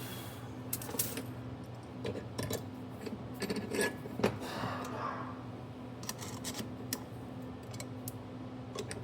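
Small metal parts being handled, with irregular light clinks and taps of metal on metal, over a steady low electrical hum.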